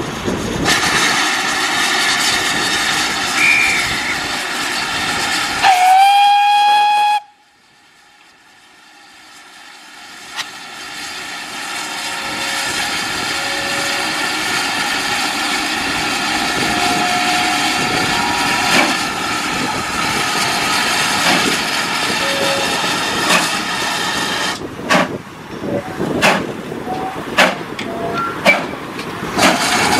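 Steam locomotive No. 9351 hissing steam, then sounding its whistle once about six seconds in: a note that slides up and holds for about a second and a half. The steam hiss builds again, and in the last few seconds sharp, uneven exhaust beats come as the engine starts pulling away.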